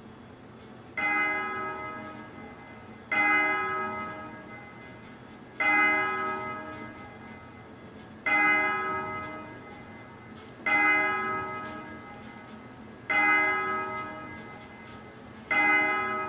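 A single church bell tolling: seven strikes about two and a half seconds apart, each ringing out and fading before the next.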